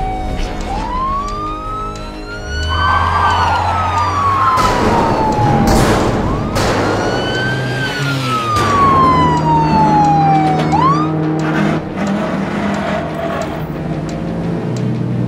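Police siren wailing in slow rises and falls, two full cycles with a third rise starting near the end, over steady background music. A few sudden crashes cut in around the middle.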